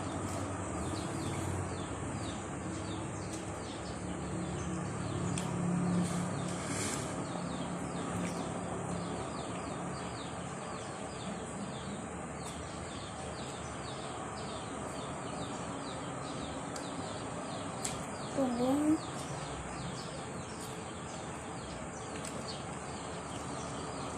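A bird chirping over and over, short falling notes repeated a few times a second, over a steady background hum.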